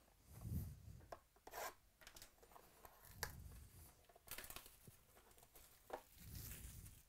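Hands handling cardboard trading-card boxes: quiet, scattered short rustles, scrapes and taps, with a few dull bumps as a box is lifted and set down.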